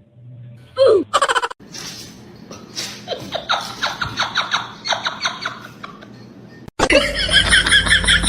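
A person laughing in a run of repeated bursts, after a short loud cry about a second in. Music starts suddenly near the end.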